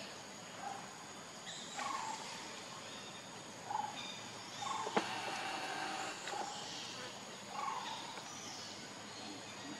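Short chirping animal calls, repeating about once a second over a steady outdoor background, with a single sharp click about five seconds in.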